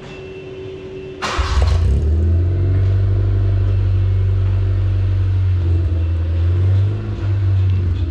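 Honda Civic engine starting about a second in, catching almost at once. It then idles with a steady low drone through a large aftermarket muffler and tip.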